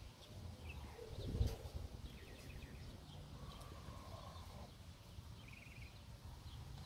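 Faint small-bird chirping, short runs of quick high repeated notes, over a low steady outdoor rumble, with one dull knock about a second and a half in.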